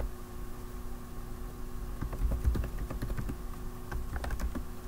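Typing on a computer keyboard: a few scattered keystrokes, then two quick runs of key clicks, the first about two seconds in and the second near the end.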